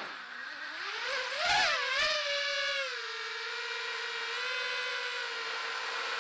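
Brushless motors of a 5-inch FPV racing quadcopter (Emax RS2205 2300KV with 3-blade props) whining, heard from the onboard camera. The pitch dips low at the start, climbs with a burst of throttle about a second and a half in, then settles into a steady whine from about three seconds in.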